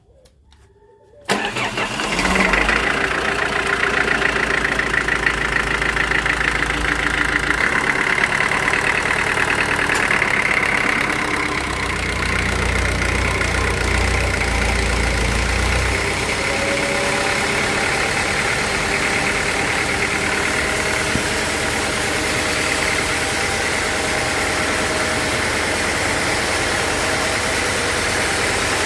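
An engine cuts in abruptly about a second in and runs on steadily, with a heavy low rumble.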